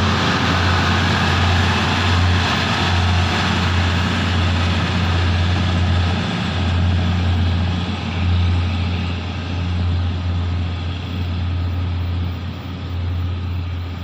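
Diesel railcars (State Railway of Thailand THN/NKF-type DMU) running past and pulling away. There is a steady low engine drone under wheel and rail noise, getting quieter over the second half.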